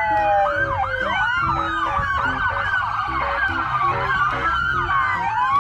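Several police car sirens sounding at once, their wails and yelps rising and falling over one another, with a steady low rumble underneath.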